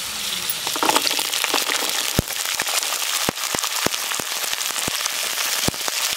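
Whole peeled shallots dropped into hot oil in a clay pot and sizzling, with sharp pops and crackles scattered through the frying from about two seconds in.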